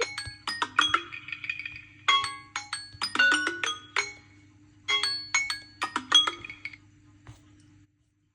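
Smartphone alert melody of bright, marimba-like struck notes, repeating a short phrase about every two seconds over a low hum. The melody and hum cut off shortly before the end.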